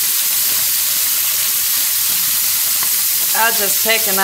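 Catfish fillets frying in butter in a very hot cast iron skillet, a steady sizzle. A voice sounds briefly near the end.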